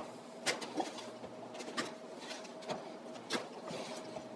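A utensil scooping cooked ground beef out of a metal skillet and dropping it into plastic zip-top bags: a few scattered clicks and knocks of metal on the pan, with light plastic rustling.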